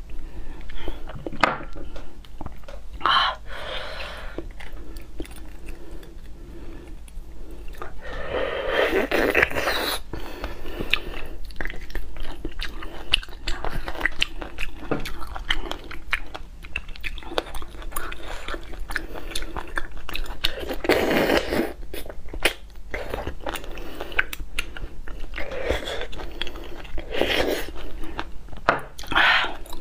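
Close-miked eating of roasted beef bone marrow: biting and chewing with many short wet mouth clicks, and a few louder, longer noisy sounds scattered through.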